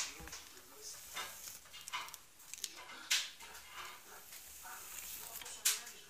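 A hairbrush drawn through long straight hair: a series of soft, irregular swishing strokes, the strongest about three seconds in and again near the end.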